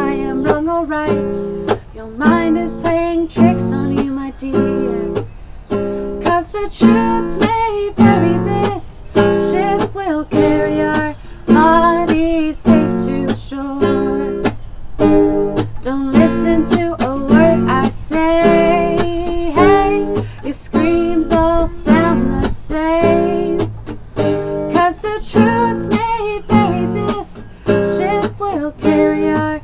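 A woman singing along to a strummed nylon-string classical guitar, with chords struck in a steady rhythm.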